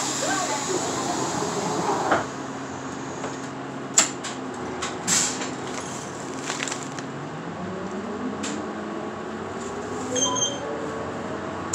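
Bus engine running at a steady low note with a few sharp knocks and rattles. From about seven seconds in, the engine note climbs steadily as the bus accelerates.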